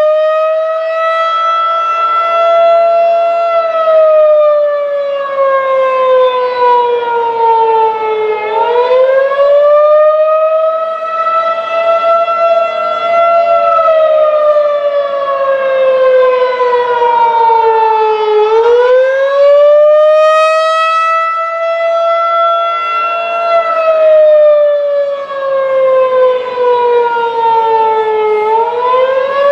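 Federal Signal 2001-DC outdoor warning siren sounding the attack signal during a test. It wails: the pitch climbs quickly, holds for a few seconds, then slides slowly down, once about every ten seconds.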